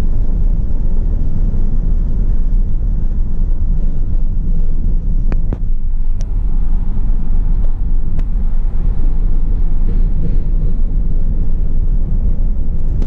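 Steady low rumble of engine and road noise inside a truck cab at highway speed, with a few sharp clicks around the middle.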